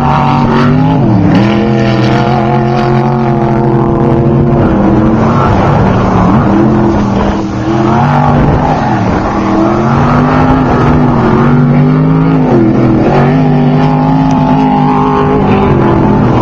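Desert off-road racing vehicle engine running at high revs, its pitch dipping briefly and climbing back several times.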